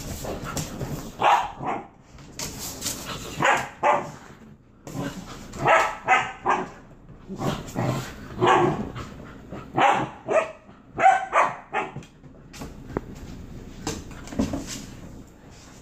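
Dog barking and yipping in a string of short calls, about a dozen, with brief pauses between them, thinning out near the end.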